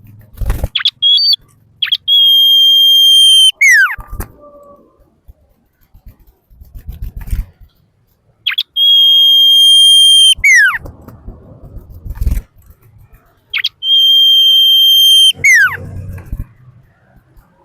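Common iora (sirtu) singing: three long, level, piercing whistles, each held about a second and a half and ending in a quick downward slide, each led in by a short upward note or two. Low knocks and rustling sound between the phrases.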